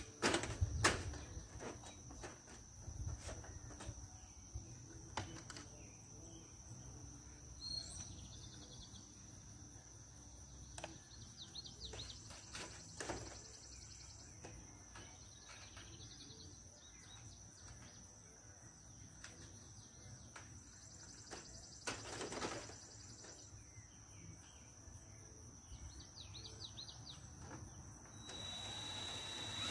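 Outdoor ambience: a steady high insect drone with occasional bird chirps. Scattered light knocks and one short clatter about two-thirds of the way through. Just before the end the level rises and a new steady high whine comes in.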